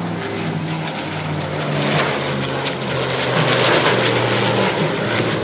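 Aircraft engines during a low display pass, a dense running noise with a low hum that swells to its loudest about two to four seconds in.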